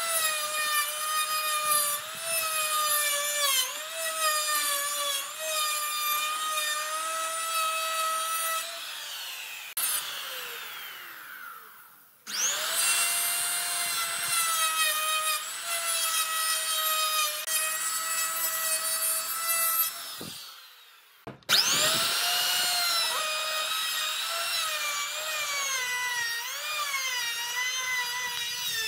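Handheld electric router cutting along the edge of a wooden board: a high motor whine that dips and wavers as the bit takes the wood. Twice it is switched off and winds down to a stop, then restarts with a rising whine.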